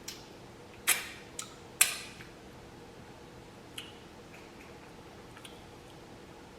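Close-miked eating of tender BBQ jerk chicken: a few sharp, wet mouth smacks and clicks while chewing. The two loudest come about one and two seconds in, with fainter ones later.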